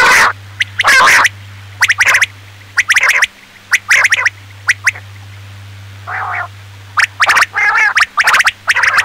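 Recorded calls of a male quail (batair), male only with no female calls: short, sharp, repeated calls in quick groups with brief pauses between them. A steady low electrical hum runs underneath.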